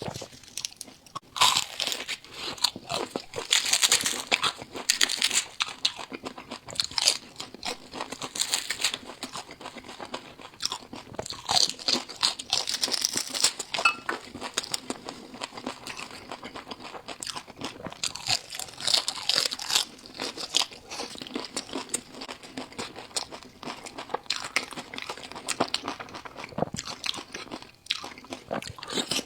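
Close-miked crunchy chewing: repeated bites into crisp food followed by loud, crackling crunches in dense clusters, with brief quieter gaps between mouthfuls.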